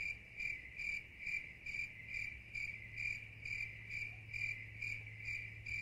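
Cricket chirping, a high chirp repeating evenly a little over twice a second over a low steady hum: the stock 'dead quiet' cricket sound effect for an empty, peaceful room.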